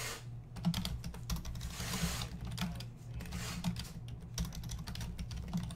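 Typing on a computer keyboard: a quick, irregular run of plastic key clicks.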